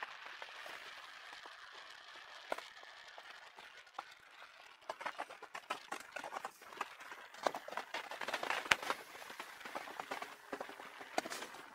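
Folding bicycle rattling and clicking as it is ridden over the road, over a steady hiss of tyres and wind. The clicks are irregular and grow busier from about five seconds in.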